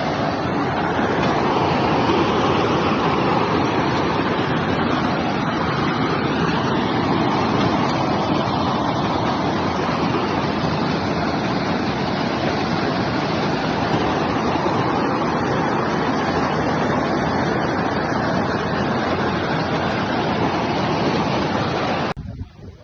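Loud, steady rushing of water, typical of heavy rain and floodwater, cutting off abruptly near the end.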